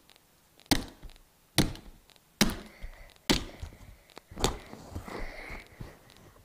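Five hard hammer blows on a Nokia flip phone, a sharp knock about every second, each with a short rattling tail.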